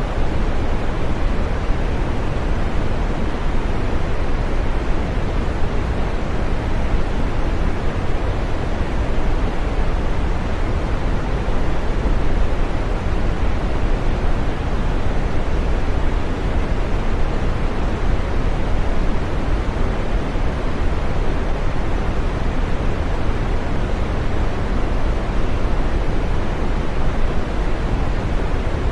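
Green noise: a steady, even synthetic hiss with no rhythm or events, its energy weighted toward the low and middle range and falling away in the treble.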